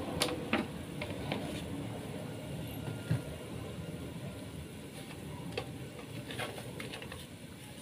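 Fish soup broth simmering in an aluminium wok, a steady soft bubbling hiss, with a few small clicks scattered through it.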